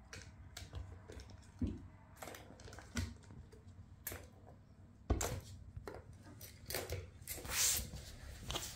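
Kitten clambering on a wicker cat bed: irregular clicks and scratches of claws gripping the woven wicker, with a few soft thumps and a longer scraping rustle near the end.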